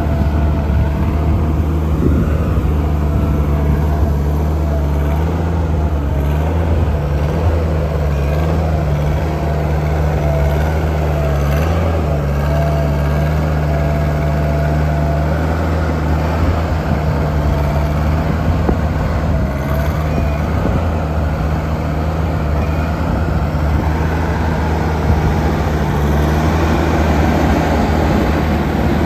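JCB Midi CX compact backhoe loader's diesel engine running steadily, with a faint wavering whine above the engine note.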